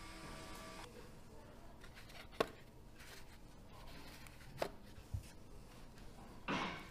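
Small metal nameplates clicking sharply twice, about two seconds apart, as a gloved hand handles them in a tray, followed by a short brushing rustle near the end. A faint hum cuts out about a second in.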